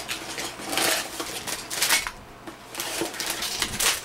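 Small plastic Lego pieces rattling and clattering in their box as it is opened and handled, in a few short bursts.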